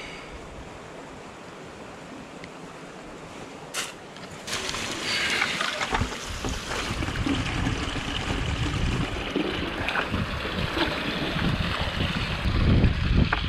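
Stream water running with wind noise on the microphone; from about four and a half seconds in it grows louder and rougher, with water sloshing and handling noise as a plastic bucket of water is worked at the water's edge.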